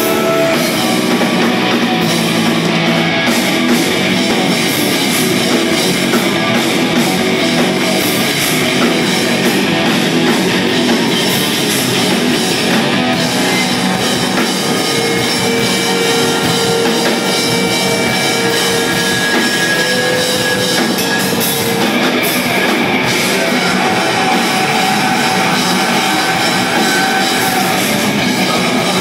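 Live heavy metal band playing loud and steady: distorted electric guitars, bass guitar and a drum kit, with some notes held for several seconds.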